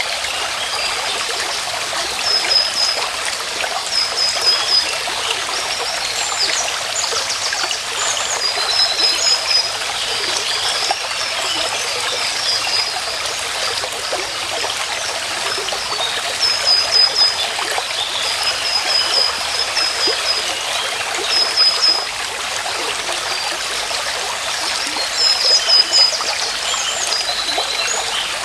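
Stream water trickling and running steadily, with a small bird repeating a short, high call of a few quick notes every few seconds.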